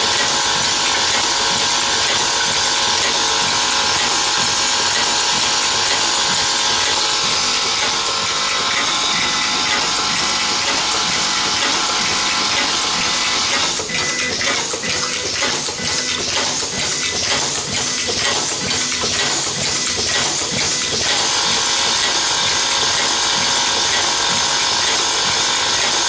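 Automatic nylon zipper slider mounting machine running by itself: a steady, dense mechanical buzz from its vibratory slider feeder. For about seven seconds around the middle the buzz gives way to rapid, irregular clicking and clatter from the mounting mechanism, then the steady buzz returns.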